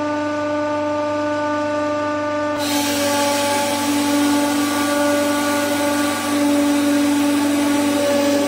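Hydraulic press pump and ram whining at a steady pitch while pressing down on a load, with a hiss joining about two and a half seconds in.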